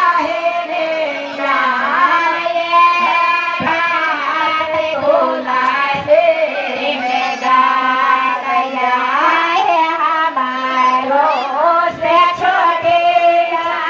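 A high-pitched voice singing a song in long, wavering held notes, with music faintly beneath it.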